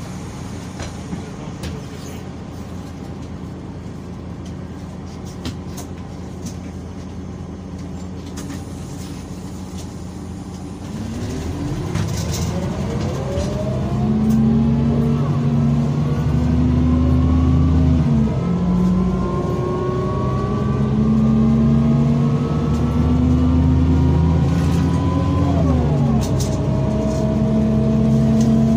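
Mercedes-Benz O345 city bus diesel engine idling steadily, then pulling away about eleven seconds in. The engine note rises as the bus accelerates and drops back twice at gear changes, rising again after each.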